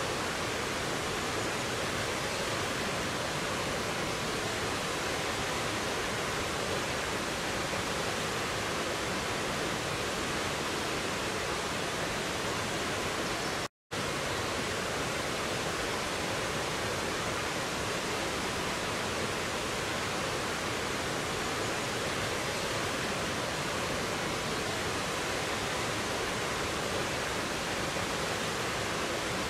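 Mountain stream rushing over rocks and small cascades, a steady, even rush of water. It cuts out completely for a split second about halfway through.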